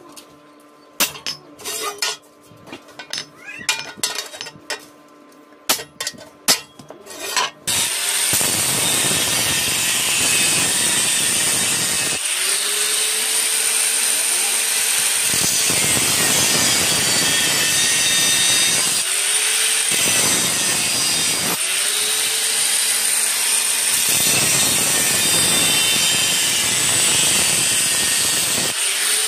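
Irregular sharp metal taps on a sheet-iron plate. About eight seconds in, an electric angle grinder starts up and runs continuously, its disc grinding the plate's edge with a high steady whine. Several times the motor speeds back up as pressure on the disc eases.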